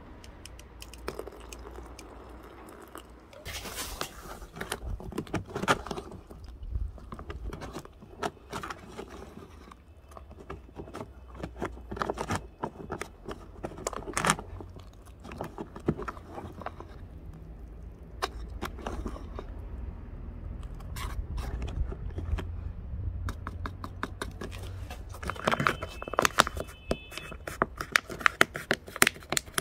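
A long spoon stirring and scraping inside a freeze-dried meal pouch as the meal rehydrates, with irregular clicks and crinkles of the pouch. Near the end the pouch is gripped and folded at its top, and the crinkling gets denser.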